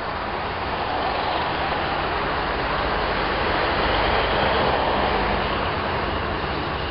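Passing road traffic, a steady noise that swells to a peak around the middle and eases off, mixed with the running noise of a modern low-floor tram approaching on its tracks.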